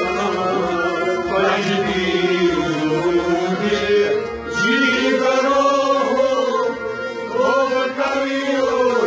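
Men chanting a Kashmiri Sufi devotional song (kalam) over a steady held instrumental drone. The voices swell and waver in pitch, rising again about halfway through after a brief dip.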